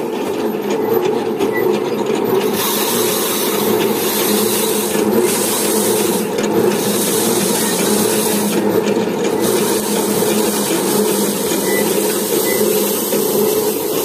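Mini rice thresher's toothed drum spinning steadily, with a harsh rasping as bundles of rice stalks are held against it to strip off the grain. The rasp swells and eases several times as each bundle is fed in and pulled back.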